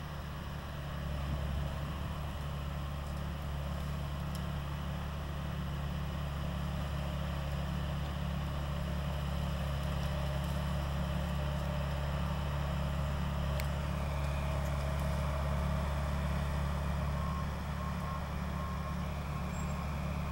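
John Deere 450 crawler dozer's engine running steadily, with a low, even hum that grows a little louder about a second in.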